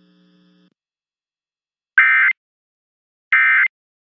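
Two short bursts of Emergency Alert System end-of-message data tones (the SAME digital code, sent as rapidly alternating audio tones), about 1.3 seconds apart, marking the end of the alert. A faint mains hum stops about a second before the first burst.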